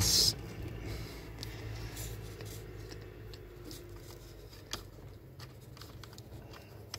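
Faint rustling and small clicks of car wiring and a small plastic connector being handled by fingers, with one sharper click about five seconds in.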